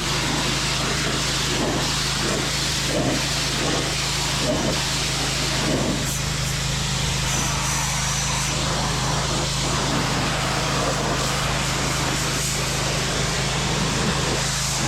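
Pressure washer running: a steady engine hum under the loud hiss of the water jet.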